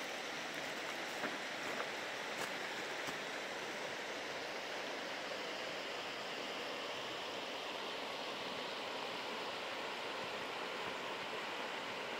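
The Oslavka river running, a steady even rush of flowing water, with a few faint clicks in the first three seconds.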